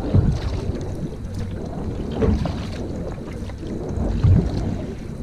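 Single-blade paddle strokes driving a narrow racing canoe through calm water, with a low swell of water sound about every two seconds as each stroke pulls. Wind rumbles on the microphone throughout.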